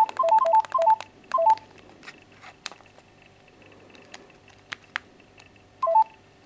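Keypad key tones of a Texet B200 phone: a quick run of about eight short two-note beeps in the first second and a half as keys are pressed in fast succession. A few soft button clicks follow, then one more beep near the end.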